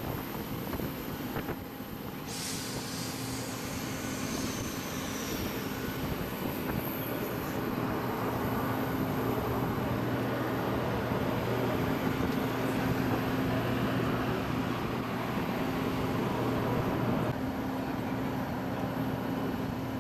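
Steady machinery drone of an airport apron around a parked jet airliner, with a low hum running under it. A high whine falls away a few seconds in, and the drone grows louder toward the middle.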